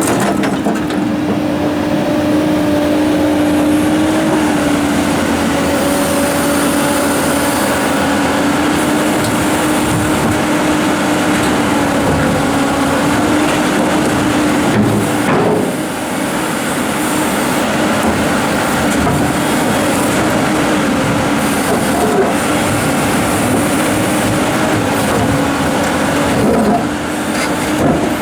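Komatsu PC290-11 excavator's diesel engine and hydraulics running steadily under load with a constant hum, and a few brief knocks along the way.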